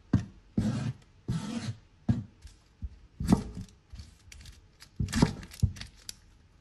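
Garlic cloves being handled and prepared for cooking: a string of irregular short knocks and scraping noises.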